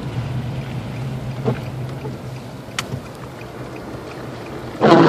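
Car cabin noise while driving: a steady low engine and road hum. A few faint clicks, and a brief loud thump near the end.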